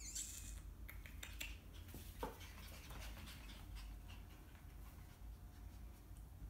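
Australian Shepherd puppies moving about on a hard floor and rug: faint scattered clicks and scuffs of small paws and claws.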